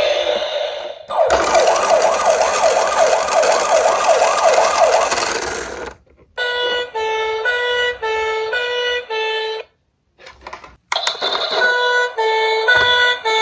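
Toy emergency vehicles' sirens. First a fast up-and-down wailing yelp for about five seconds, then a stepped two-tone hi-lo siren. That siren stops for about a second and starts again with a different stepped pattern.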